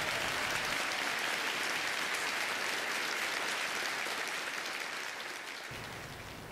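Applause, many hands clapping steadily, fading out over the last second or so.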